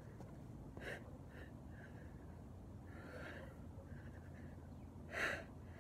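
A man breathing hard from exertion while working on a pull-up bar: a series of short gasps and forceful exhales, the loudest just after five seconds in.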